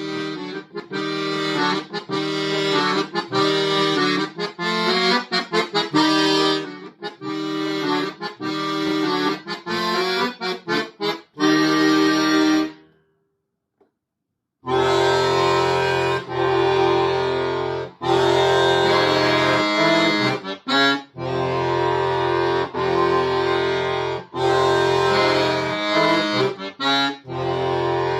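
Solo accordion playing short, detached chords. The music breaks off for about two seconds around the middle, then resumes with held chords over a steady low bass.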